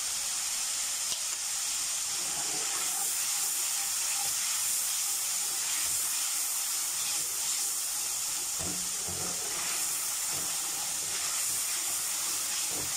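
Sauce sizzling steadily in hot oil in a kadhai over a high flame, a constant hiss. A steel ladle stirring it gives a few faint scrapes now and then.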